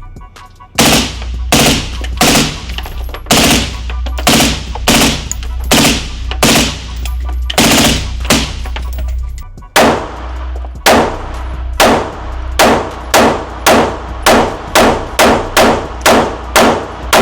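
Gunshots at an indoor shooting range. Single shots come about a second apart at first, then faster strings of two to three shots a second in the last several seconds, each ringing off the range walls.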